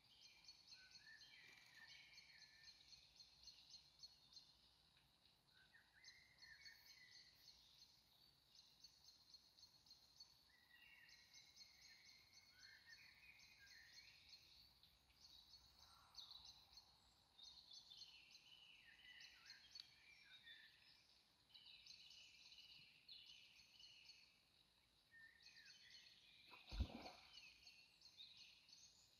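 Faint birdsong from several birds: rapid high chirping trills repeated over and over, with shorter falling phrases lower down. A single sharp knock cuts in near the end.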